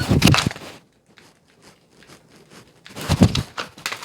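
Dry-fire drill with a Glock 45: a loud clatter of the draw from the holster, then a run of light clicks from trigger presses, and another loud clatter of gun and magazine handling about three seconds in, typical of the drill's reload.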